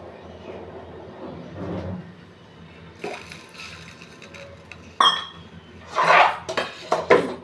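Water from a tap splashing in a sink in loud uneven gushes, with a utensil clinking once about five seconds in, ringing briefly.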